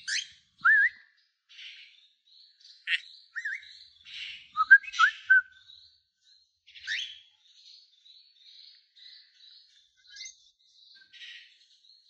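Cockatiel giving scattered short, rising whistle notes and scratchy chatter in separate bursts rather than a whole tune, which the owner takes for the bird having forgotten its song.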